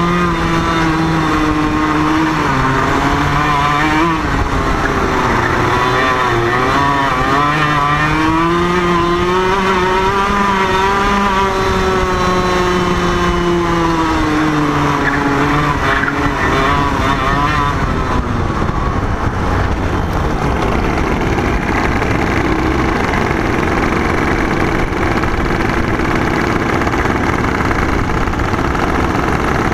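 IAME KA100 100cc two-stroke kart engine at racing speed, its pitch rising and falling repeatedly through the corners. A bit over halfway through, the engine note fades and a steady rushing noise is left.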